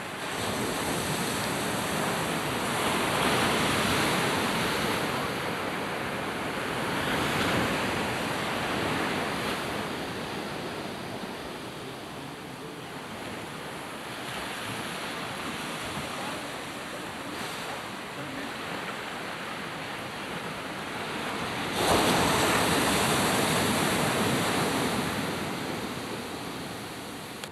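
Small waves breaking and washing up on a sandy beach, the surf swelling and ebbing every few seconds. The surf becomes suddenly louder about three-quarters of the way through.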